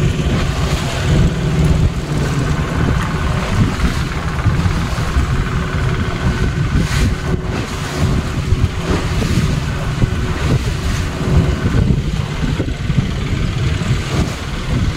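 Outboard motor running steadily, driving a small wooden boat over choppy water: a constant low rumble with a steady hum in it.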